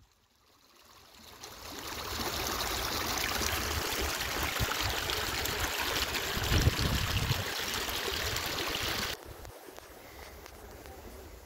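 Small creek rushing and splashing over rocks, fading in over the first couple of seconds, with low rumbling underneath. About nine seconds in it cuts off sharply to a much quieter rushing.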